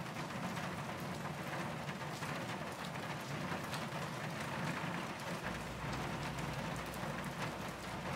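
Steady rain ambience, an even patter of drops, with a low hum joining about two thirds of the way through.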